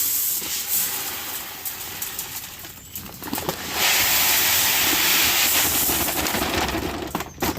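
Wheat seed pouring from a bag into a John Deere 1560 grain drill's seed hopper, a rushing hiss of grain. One pour fades over the first few seconds, then a louder pour runs from about four seconds in for about three seconds.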